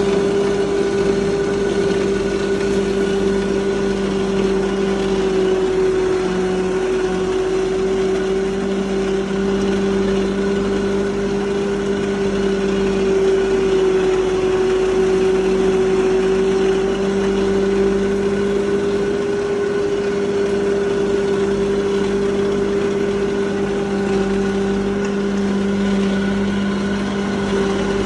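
Busa (crop husk) grinding machine running steadily under load, driven by an electric motor and belt, as husk is fed into its hopper. It gives a steady hum with a constant mid-pitched whine that does not change.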